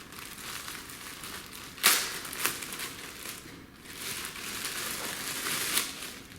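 Packaging crinkling and rustling as it is handled and opened, with a sharp crackle about two seconds in and steadier crinkling through the second half.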